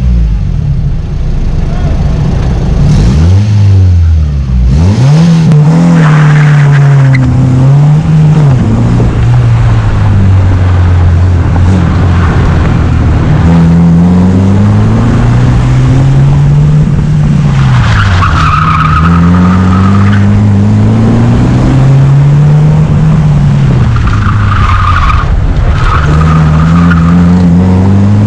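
Honda Civic SiR engine revving up and falling back again and again as the car is driven hard through an autocross course. Its tyres squeal in several bursts through the corners.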